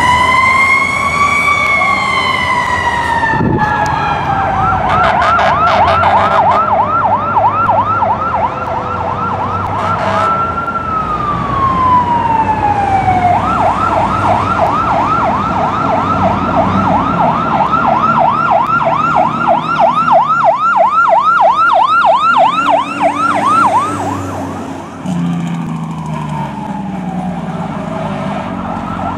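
Fire truck sirens sounding: a slow wail sweeping up and down, switching to a fast yelp, back to a falling wail, then a long stretch of fast yelp and a last wail near the end.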